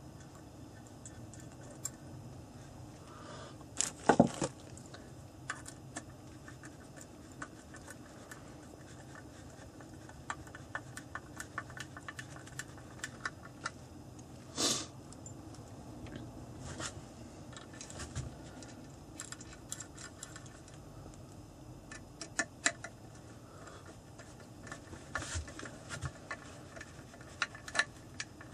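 Small metallic clicks, taps and scrapes of wood screws and washers being handled and driven through a metal butt pad plate into a wooden rifle stock, with two louder knocks, about four seconds in and halfway through.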